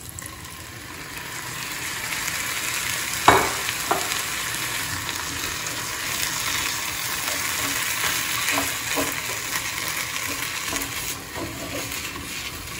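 Mashed raw banana, pea and spice mixture sizzling in a hot nonstick frying pan after a splash of water goes in, stirred and pressed with a silicone spatula. The sizzle builds over the first two seconds and then holds steady. There is one sharp knock of the spatula on the pan about three seconds in and a few lighter taps later.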